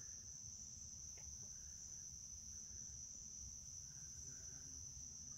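Night insects, crickets, chirring in one steady high-pitched chorus, faint, with a low rumble underneath.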